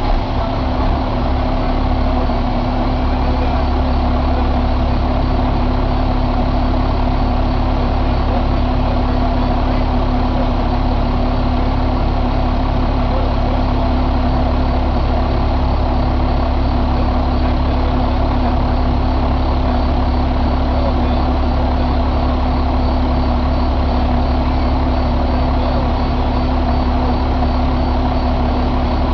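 2000 International DT530E inline-six turbo diesel idling. It is uneven for the first couple of seconds just after starting, then settles into a steady idle.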